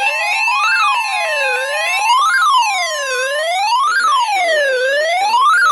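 Electronic siren wailing, its pitch rising and falling smoothly about once every second and a half. Steady tones sound underneath it and fade out about halfway through.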